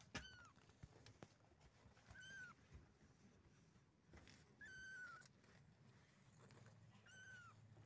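Young kittens mewing faintly: four thin, high-pitched cries a couple of seconds apart, the third one drawn out longer. A few soft knocks come in between.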